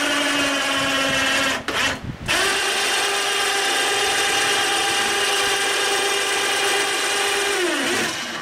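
Electric hoist motor whining steadily as it lowers an outboard into a test tank. It stops briefly about two seconds in, starts again at a higher pitch, and winds down with a falling whine near the end.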